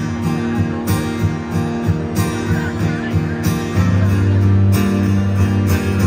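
Solo acoustic guitar strummed in a steady rhythm, amplified through a concert PA. About four seconds in it moves to a deeper, fuller chord that is held ringing.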